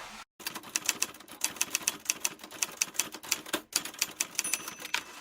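Typewriter keys clacking in a fast, even run of about six strokes a second, with a short break about three and a half seconds in: a typewriter sound effect.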